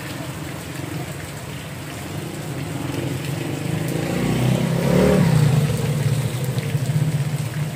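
A motor vehicle driving past on the wet street, its engine growing louder to a peak about five seconds in and then fading.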